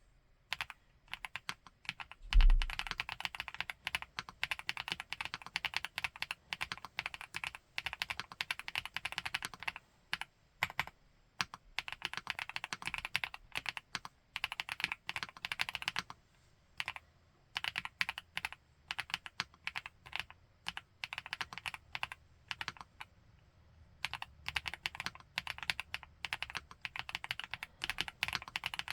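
Typing on an FL-Esports Geo75 mechanical keyboard with Kailh x Funkeys BCP switches: fast runs of key clacks broken by short pauses. A single heavier thump about two seconds in is the loudest sound.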